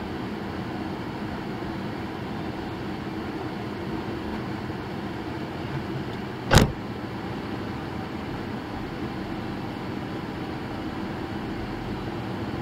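Steady running noise of a car heard from inside its cabin, a low even rumble with a faint hum, as it waits and then moves off slowly. One sharp knock about halfway through.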